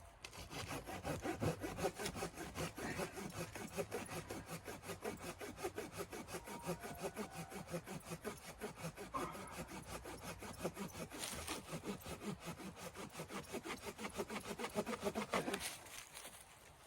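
Hand saw cutting through firewood, rapid regular back-and-forth strokes that stop about a second before the end.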